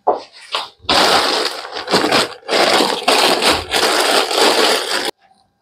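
Plastic courier mailer bags rustling and crinkling loudly as they are picked up and handled close to a clip-on microphone, in several long stretches with brief breaks, stopping suddenly near the end.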